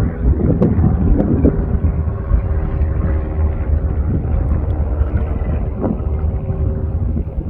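Fagradalsfjall volcano's crater giving a steady low rumble and hum as lava boils up inside it, with a few brief crackles in the first second or two.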